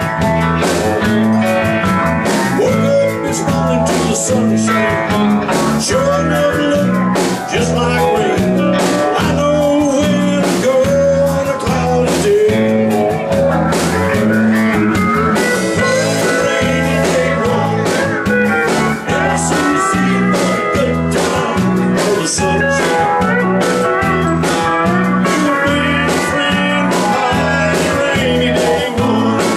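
Live country-blues band playing a song: electric guitar over bass and a steady drum beat, with a man singing lead.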